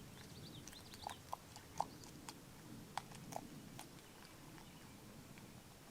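American beaver chewing, a string of faint, short, sharp crunches and clicks, several in a row between about one and four seconds in.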